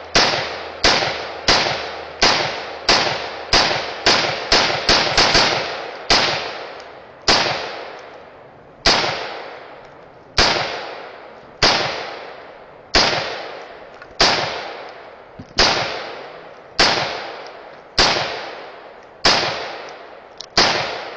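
Gunfire: a quick string of about a dozen shots in the first five seconds, then single shots at a steady pace of about one every second and a half. Each shot is a sharp crack followed by a long fading echo.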